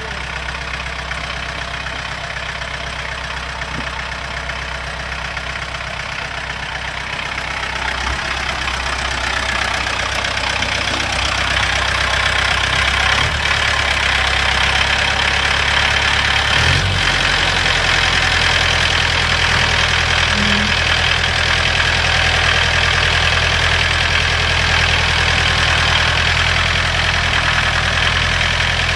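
The diesel engine of an IFA Multicar M25 tipper runs steadily while its hydraulic tipper raises the loaded gravel bed. The sound grows louder from about eight to fourteen seconds in, a higher steady whine joins it, and the engine note shifts lower a little past halfway.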